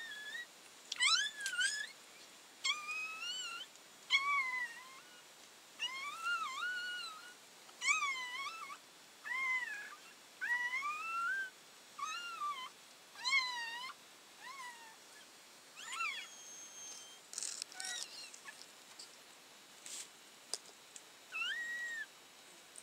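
Newborn puppies crying: a series of high-pitched mewing squeals, each rising and falling in pitch, about one a second at first and then fewer and farther apart.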